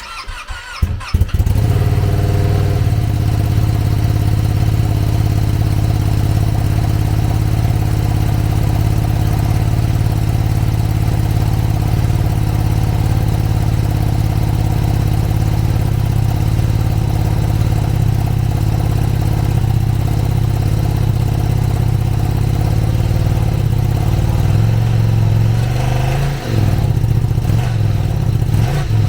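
Ducati Panigale V2's 955 cc L-twin engine with its stock exhaust starting up: a brief crank, then the engine catches and settles into a steady idle. Near the end the pitch rises and falls briefly a couple of times, as the throttle is blipped.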